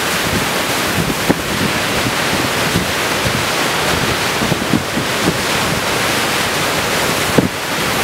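Storm waves on Lake Superior breaking and washing over shoreline rock, in a high wind gusting up to 50–60 mph. The wind buffets the microphone in frequent short, low jolts over a loud, steady rush of surf and wind.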